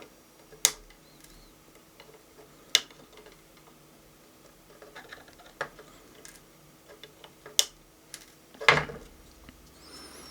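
Flush wire snips clipping the excess leads of freshly soldered capacitors on a circuit board: about four sharp single snips a couple of seconds apart, with lighter ticks between. A louder knock comes near the end.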